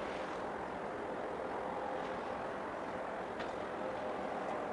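Steady outdoor background rush by the sea, with a faint, even engine hum running through it.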